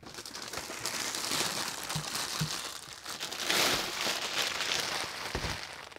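Thin HDPE plastic bag crinkling and rustling as it is pulled off a boombox, loudest about halfway through. A few soft knocks from handling are heard.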